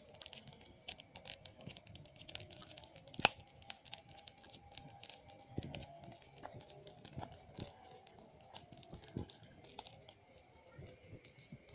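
Crackling and popping of an open fire of dry twigs and straw: irregular sharp cracks, the loudest about three seconds in, over a faint steady high tone.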